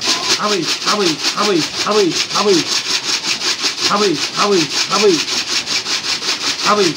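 Grain being shaken in a container in a rapid, even rhythm to call young racing pigeons into the loft, with a low falling call repeated about twice a second.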